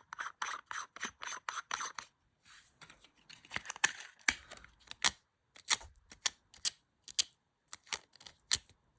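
A screw-on lens filter being threaded back onto a camera lens, a quick even run of small scraping ticks for about two seconds. Then a series of sharp separate clicks, roughly two a second.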